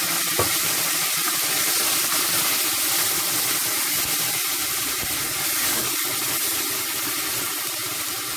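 Tomato pulp sizzling and steaming in hot olive oil with softened onion in a stainless steel pot as it is stirred with a spatula: a steady hiss that eases off slightly toward the end. A small knock of the spatula about half a second in.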